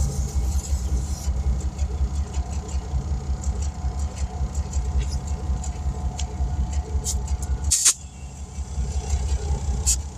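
Portable electric air compressor running, with a rapid, steady low pulsing chug. A brief, loud burst of noise cuts in near the end.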